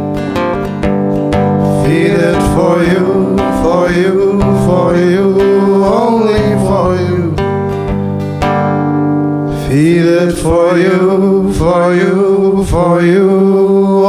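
A band plays an instrumental passage of a song: acoustic guitar strums chords under a wavering melody line. The strumming thins out briefly about eight and a half seconds in, then comes back with even strokes.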